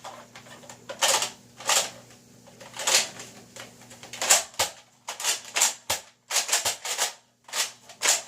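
Irregular plastic clicks and clacks, about a dozen, from a Nerf Tri-Strike blaster being handled and its parts fitted together.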